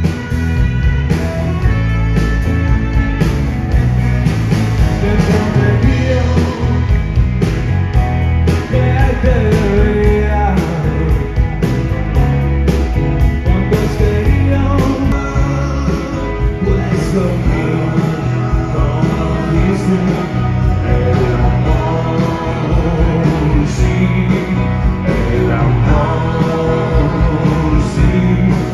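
Rock band playing live, with electric guitar over a steady drum beat and bass.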